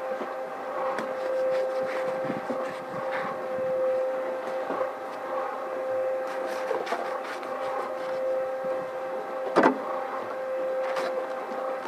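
Electric drum concrete mixer running with a steady motor hum, under scrapes and knocks of a shovel working at cement bags in a wheelbarrow; one sharp knock near the end.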